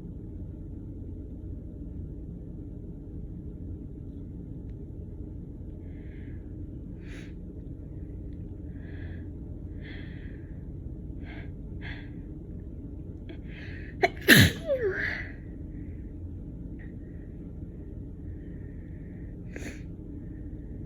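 A woman's sneeze: several faint short sniffs and catching breaths build up, then one loud sneeze about two-thirds of the way in, followed by a few small breaths. It is brought on by an itchy tickle in the nose.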